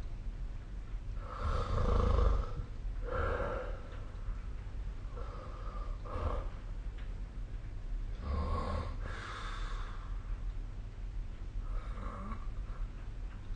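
A sleeping person snoring: about seven irregular snoring breaths, one every one to three seconds, the loudest about two seconds in. A steady low hum runs underneath.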